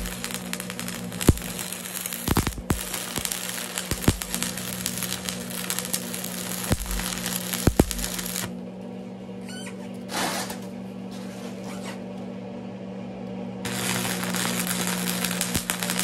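Arc welder crackling and spitting as a bead is run. The arc stops about eight and a half seconds in and strikes up again about five seconds later, with a steady low hum underneath.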